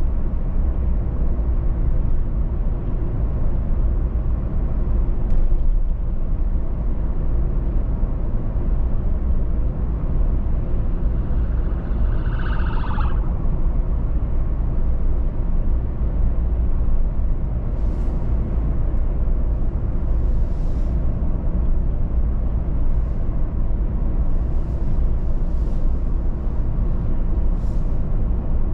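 A car driving at road speed: a steady low rumble of tyres and engine. About twelve seconds in, a brief wavering higher tone sounds for about a second, and from the second half onward faint short hissing blips come and go.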